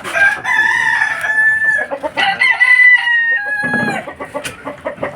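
Roosters crowing: two long crows in a row, the second starting about two seconds in.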